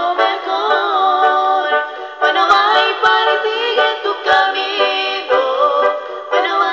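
A woman singing a melody into a microphone over electronic keyboard accompaniment. The sound is thin, with no bass.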